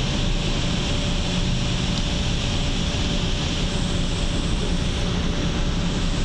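Steady ride noise inside a moving electric shuttle bus: an even rumble of road and tyres with a faint steady hum underneath.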